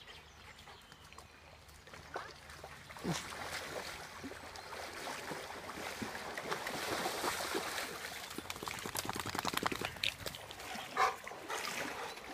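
Shallow river water splashing under the legs of a wading Greater Swiss Mountain Dog and a wading person. The splashes start about three seconds in and come thick and fast through the middle. A brief voice-like sound near the end is the loudest moment.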